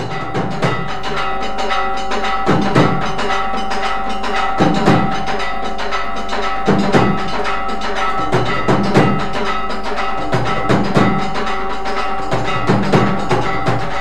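Devotional music: rapid clicking and ringing percussion over a steady held tone, with a deeper drum beat about every two seconds.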